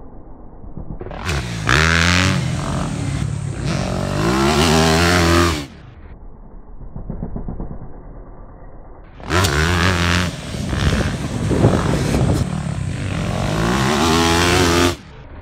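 Yamaha YZ250F four-stroke single-cylinder motocross bike revving hard in two passes, its pitch climbing and dropping as the throttle goes on and off over the jumps. Each pass cuts off suddenly, with a fainter engine sound between them.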